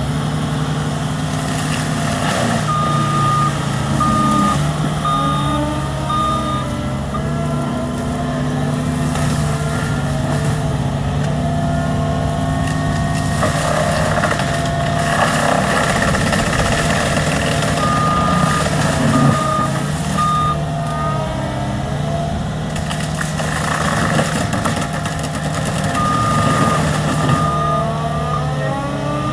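CAT skid steer loader's diesel engine running steadily, with a whine that rises and falls as it works. Its reverse alarm beeps in short runs three times as the machine backs up: about four beeps a few seconds in, four more past the middle, two near the end.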